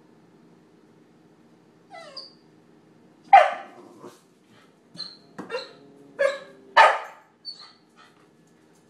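A puppy barking at a cat: about eight short, sharp barks starting about two seconds in, the loudest two near the middle and shortly before the end.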